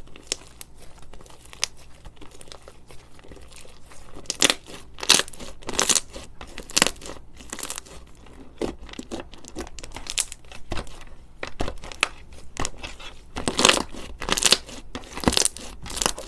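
Crunchy slime squeezed and pressed by hand, giving irregular crackling crunches and pops, with denser flurries about a third of the way in and again near the end.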